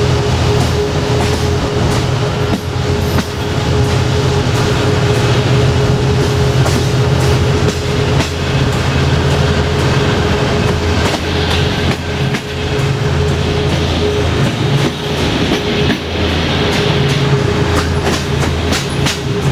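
Diesel-hauled passenger train running along the line, heard from aboard: a steady low drone with the wheels clicking irregularly over rail joints.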